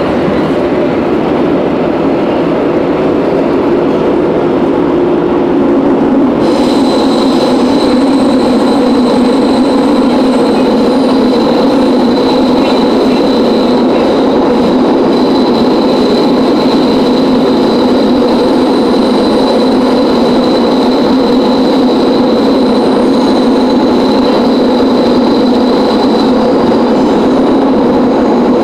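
Lisbon Metro ML90 subway train heard from inside the car as it runs through the tunnel: a loud, steady rumble of wheels on rail. About six seconds in, a high, steady whistling tone comes in and holds.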